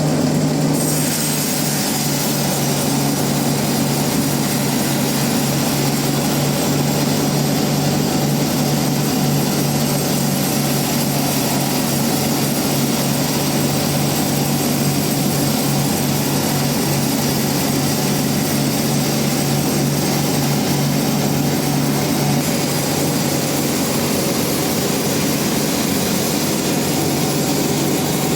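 Industrial bandsaw sawmill running, a loud, steady machine drone with a constant hum.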